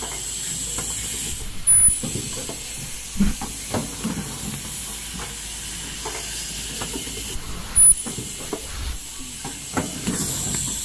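Fully automatic N95 cup mask machine running, with a steady high hiss and pneumatic parts clicking and knocking. Short loud bursts come every few seconds.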